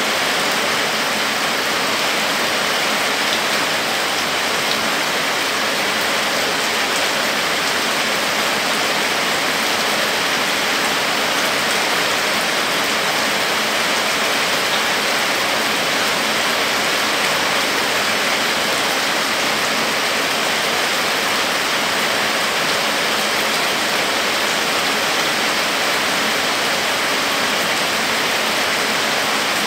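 Heavy rain falling steadily on leafy trees, bushes and a wet dirt road: an even, unbroken hiss with no letup.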